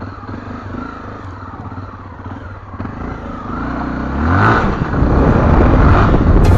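Motorcycle engine running at low revs, then revving up about three and a half seconds in, rising in pitch and getting louder.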